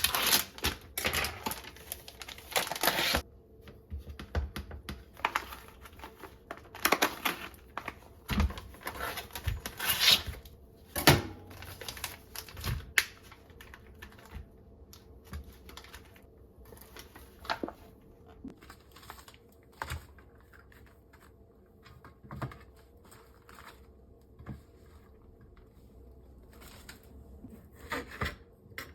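Irregular clicks, light knocks and rustling of small household objects being handled and set down, busiest in the first half and sparser later.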